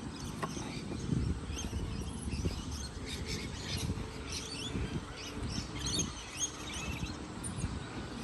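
Many birds chirping and calling in short, quick, overlapping notes, over a steady low rumble.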